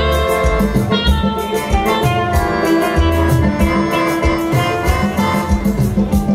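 Upbeat dance music: a red semi-hollow electric guitar played live over a steady drum beat and a repeating bass line, with bright melodic notes on top.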